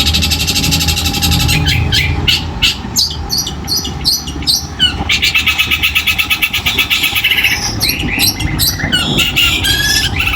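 Long-tailed shrike (cendet) singing a fast, varied song of harsh rapid-fire notes and trills, with a long rapid trill in the middle, over a steady low rumble.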